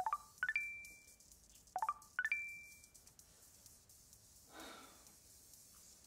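Two incoming-message notification chimes from a dating app on a tablet, about two seconds apart. Each is a quick rising run of bright electronic notes ending on a briefly held high note.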